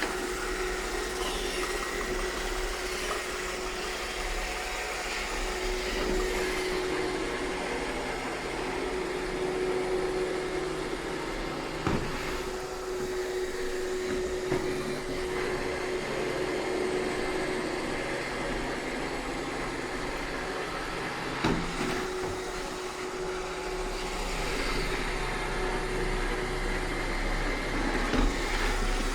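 iRobot Roomba 630 robot vacuum running steadily, a continuous motor and suction noise with a steady hum. A few short knocks cut through it, about twelve seconds in, again at fourteen and twenty-one seconds, and once near the end.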